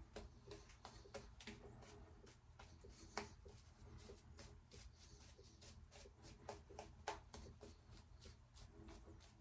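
Faint, irregular short scrapes of a 3D-printed open-comb Schick injector razor cutting stubble, one stroke at a time.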